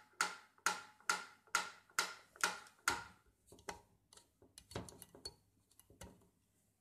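GEWA mechanical pyramid metronome ticking steadily, a sharp click a little more than twice a second, seven beats in all. The ticking stops about three seconds in, followed by scattered soft clicks and rattles as the metronome is handled.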